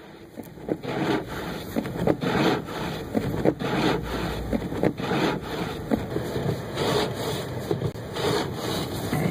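Uneven rubbing and rasping noise with a rough hiss, from wind and driving snow buffeting the microphone of a camera on a moving car.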